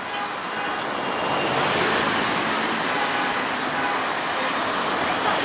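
Busy city traffic ambience: a steady wash of road traffic noise.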